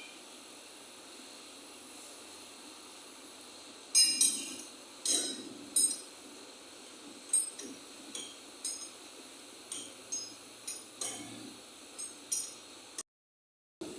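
Light metal-on-metal clinks and taps with a short ring, starting about four seconds in and coming irregularly, roughly fifteen in all, the first ones the loudest.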